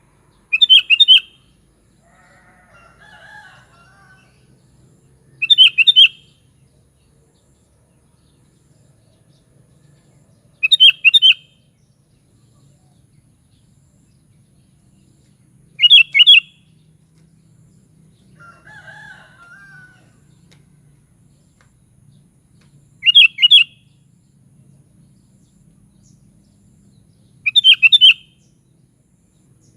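Sooty-headed bulbul (kutilang) giving short, loud bursts of song six times, roughly every five seconds, with fainter, lower calls twice in between.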